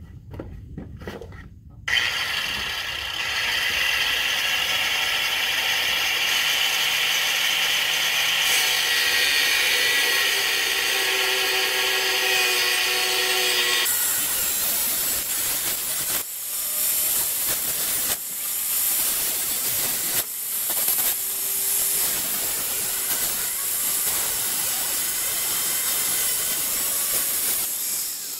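Angle grinder cutting through an ATV's metal front axle. It spins up about two seconds in and grinds on steadily with a high whine over a hiss, easing off briefly a few times in the second half as the cut is worked.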